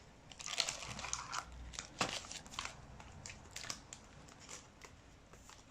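Crinkling and rustling of a trading-card pack wrapper as it is handled and torn open, in bursts through the first half, then scattered light clicks as the cards are handled.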